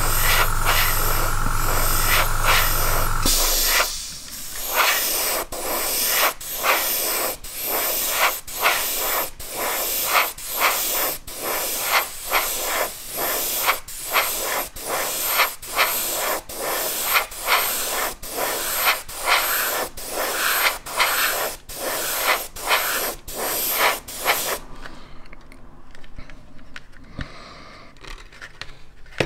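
Airbrush spraying paint in short, rapid trigger pulses, about one and a half a second, while a model aircraft is given a slightly heavier coat. A steady low hum underneath stops about three seconds in, and the spraying stops about 25 seconds in.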